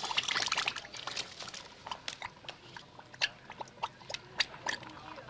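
Model volcano's lava bubbling: a hiss at first, then irregular wet pops and clicks.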